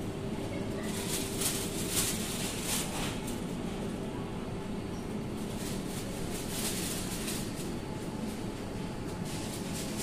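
Supermarket ambience: a steady low hum, with short hissing or rustling sounds about one to three seconds in and again around six to seven seconds in.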